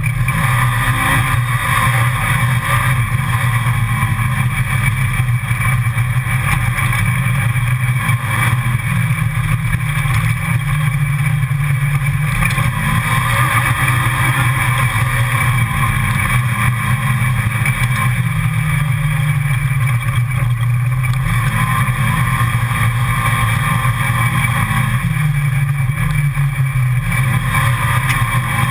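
Side-by-side UTV engine running as it drives along a rough dirt trail, heard from the open cab; the engine note rises and falls briefly several times with the throttle over a steady rushing noise.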